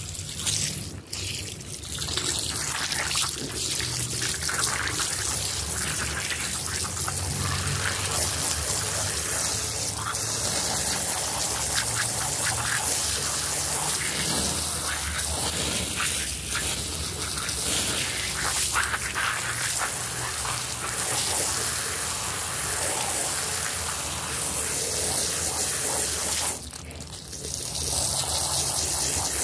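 A jet of water spraying and splashing onto a soaked carpet rug, rinsing the shampoo foam off it: a steady hiss of spray that drops away briefly about three seconds before the end.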